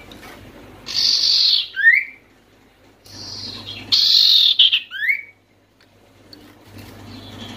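Common iora (sirtu/cipoh) calling: a harsh, raspy chatter about a second in and again about four seconds in, each followed by a quick rising whistled note.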